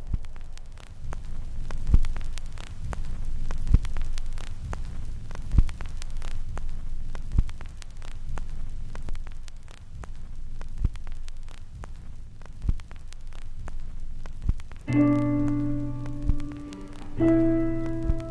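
Background music: a slow, soft beat about every two seconds under faint crackle, with sustained keyboard chords coming in near the end.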